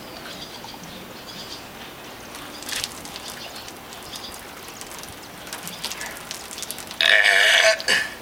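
Beer being shotgunned from cans: several seconds of faint drinking sounds with a short sharp sound near three seconds in, then a loud vocal outburst of about a second near the end.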